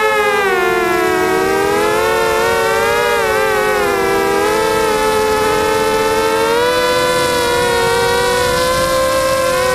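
Toad 260 FPV quadcopter's motors and propellers whining in flight, heard from the onboard camera; the pitch dips about a second in and then keeps rising and falling as the throttle changes.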